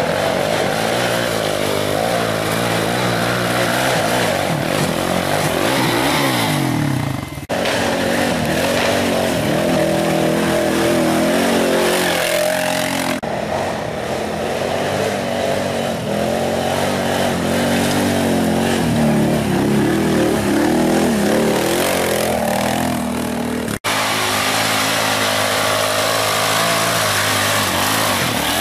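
Sport quad engines revving hard on a steep dirt climb, the pitch rising and falling with the throttle. The sound breaks off abruptly twice and picks up again.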